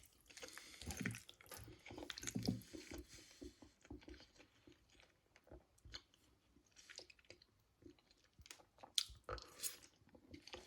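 Close-up chewing and biting of a microwaved chicken burger: irregular wet mouth noises and small crunches, fading away in the middle and picking up again near the end.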